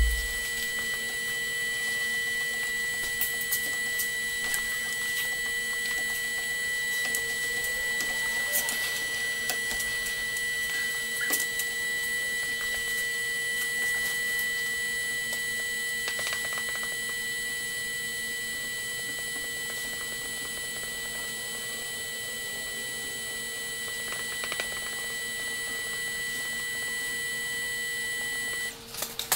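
Maslow CNC's right chain gearmotor running steadily as it winds the roller chain to its calibration length: a steady high-pitched whine with a lower hum underneath and a few faint clicks from the chain. It cuts off suddenly about a second before the end, when the chain is adjusted.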